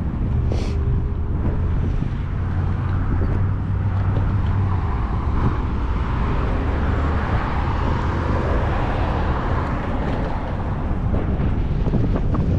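Wind buffeting an action camera's microphone on a moving electric scooter: a steady low rumble with the scooter's road noise beneath.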